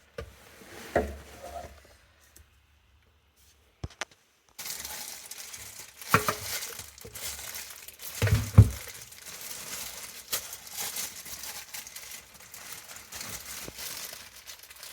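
Sink drain parts being handled and worked loose: scattered clinks, knocks and crinkling, with the loudest knock about eight and a half seconds in.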